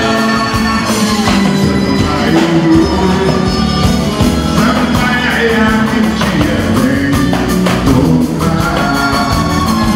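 Live samba band playing, with a lead voice singing over the instruments.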